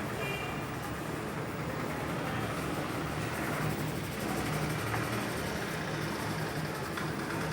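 Steady background rumble and hiss of traffic noise, with no distinct knocks or cracks standing out.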